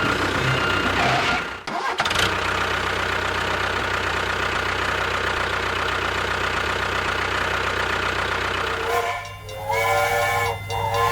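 Small motor of a miniature DIY tractor running steadily, briefly cutting out about a second and a half in. Near the end the motor stops and music comes in.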